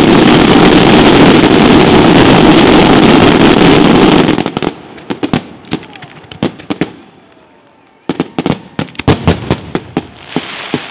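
Fireworks display: a loud, dense, continuous barrage that cuts off abruptly about four seconds in, followed by scattered sharp cracks and bangs of bursting shells, a brief lull, then a fresh cluster of bangs near the end.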